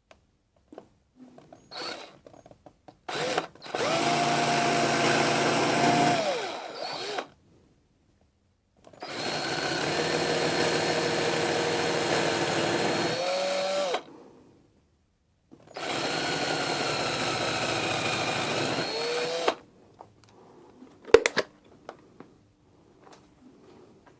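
Small power drill running in three separate runs of about four seconds each, with short pauses between, its pitch shifting as each run ends. A sharp click follows near the end.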